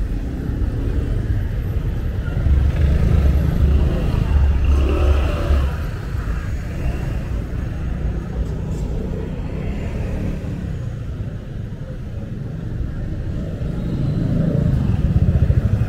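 Street traffic of cars and motorbikes in a jam, engines running close by. The low rumble swells twice, about three seconds in and again near the end.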